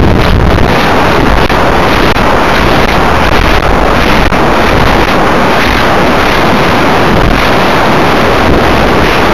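Loud, steady rush of wind over the microphone of a camera riding on a high-power rocket's airframe in flight, with a few faint clicks.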